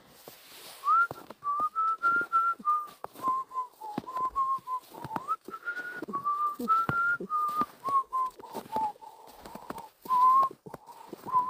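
A person whistling a slow melody, one clear note at a time, wandering up and down between held notes, with a few short clicks underneath.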